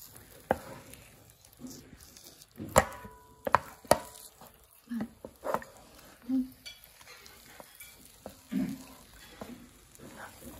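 Wooden spatula knocking and scraping against a nonstick frying pan while stirring thick, sticky dough. Irregular sharp knocks, loudest about three seconds in, with a few short low squelches from the dough.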